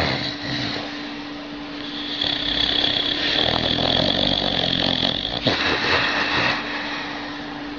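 Sleeping dog snoring: one long drawn-out snore starting about two seconds in and lasting about four seconds, with a steady hum underneath. The snore sounds much like a human voice.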